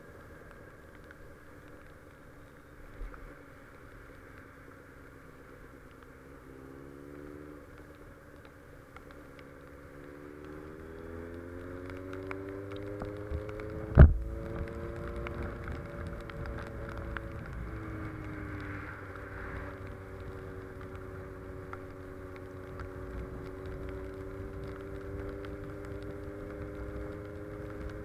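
Honda CB 650F's inline-four engine pulling the bike along a wet road: the engine note climbs briefly, then rises again as the bike gently accelerates. A sharp thump about halfway through is the loudest sound. After it the engine settles into a steady cruise, with a slight drop in pitch a few seconds later.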